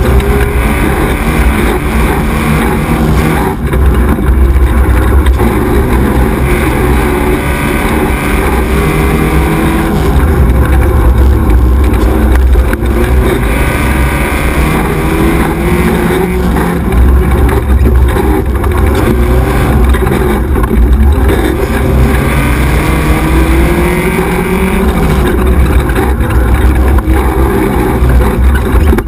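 Onboard sound of an XY 1100R 4x4 buggy's engine running hard under load, its pitch rising and falling again and again as the driver works the throttle along a rough dirt trail, with frequent knocks and a heavy low rumble.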